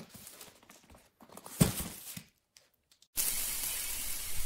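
A few knocks and rustles of handling, the loudest about one and a half seconds in, then a sudden sparkling hiss starts about three seconds in and slowly fades: the sound effect of an animated logo intro.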